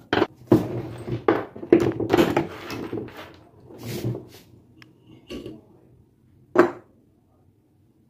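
Clicks, knocks and scraping of metal parts being handled as a small electric fan motor is taken apart, its metal end cover being worked off the stator. A quick run of knocks in the first couple of seconds, then a few single knocks, the last one near the end.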